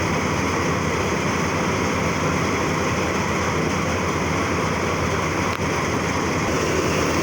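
Tractor-powered wheat thresher running steadily: a continuous, unbroken mechanical noise with a low engine rumble underneath.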